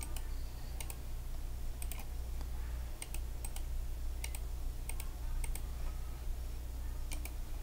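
Computer mouse and keyboard clicks: a string of sharp clicks, many in quick pairs like double-clicks, over a steady low hum.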